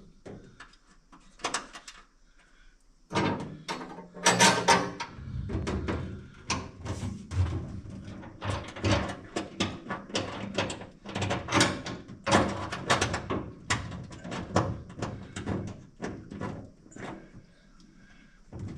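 Irregular clicking, tapping and clunking of metal hardware, starting about three seconds in, as a nut is worked by hand onto a gas tank strap bolt under a car.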